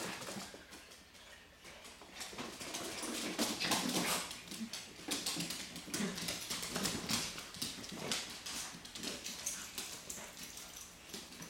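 Small poodles playing on a hardwood floor: their claws click and scrabble on the wood as two of them tug at a plush toy. A few short low vocal sounds from the dogs come in the middle.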